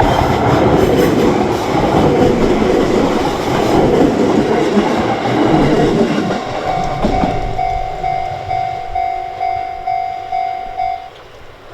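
A train passing through a Japanese level crossing, its wheels on the rails loud for the first six seconds or so while the crossing's alarm bell rings. Then the bell is heard alone, ringing its kan-kan at about two strokes a second, and it stops about eleven seconds in.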